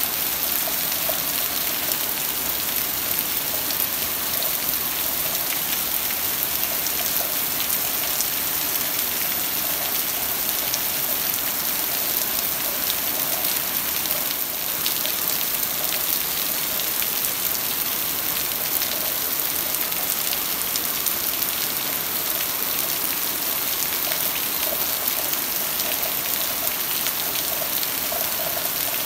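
Heavy rain pouring down on a paved yard, a parked car and rooftops: a steady, even hiss.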